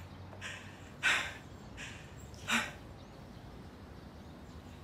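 Three short breathy exhalations from a man, nervous chuckles through a grin, in the first three seconds. The last one carries a little voice.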